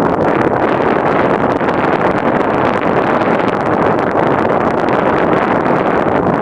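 Racing quad running hard at speed, its engine noise blended into a steady, loud rush of wind buffeting the microphone.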